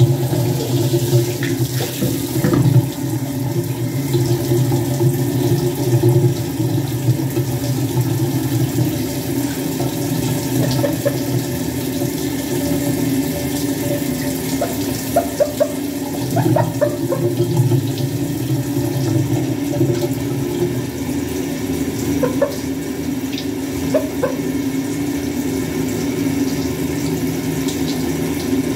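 Handheld shower sprayer running steadily into a bathtub, the water splashing over a chicken and onto the tub floor.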